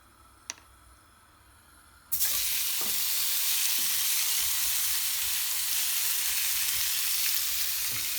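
Chicken steak laid into a hot oiled pan: quiet with a small tap at first, then about two seconds in a loud, steady sizzle starts suddenly as the meat hits the hot oil and keeps frying.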